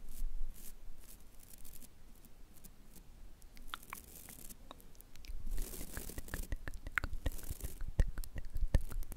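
Mouth sounds right at the microphone: sparse crisp clicks at first, becoming a dense run of wet clicks and crunchy smacks from about halfway, with soft low thumps of breath on the mic.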